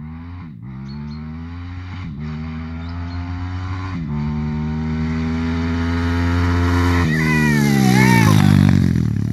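A Zongshen 160cc single-cylinder four-stroke pit bike engine accelerating hard. Its note climbs and dips at each gear change, three times, and it grows louder as the bike approaches. About seven seconds in, the note drops sharply as the rider comes off the throttle.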